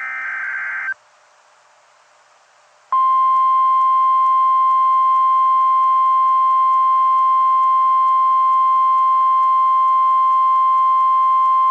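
The tail of an EAS digital header burst, a brief warbling data tone, for about the first second; then, after a short pause, the steady single-pitched 1050 Hz NOAA Weather Radio warning alarm tone held for about nine seconds, announcing a tornado warning.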